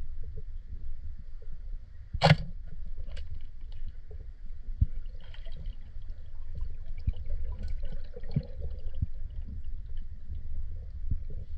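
Underwater sound heard through a camera housing: a steady low rumble of water moving past, with one sharp knock about two seconds in and a few fainter clicks after it.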